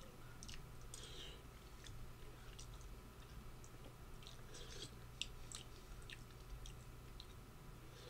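Faint chewing of a soft bean stew, with scattered small clicks of a spoon against the bowl, over a steady low hum.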